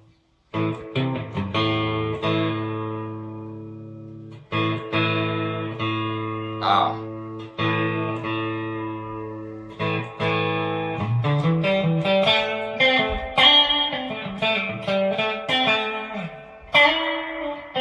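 Fender Player Series Stratocaster electric guitar with single-coil pickups, played with a clean tone. A few strummed chords are left to ring out, then a run of quick single-note licks starts about eleven seconds in.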